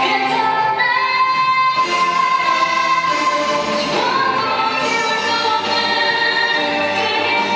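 Music: a song with singing, its voice holding long sustained notes over the accompaniment.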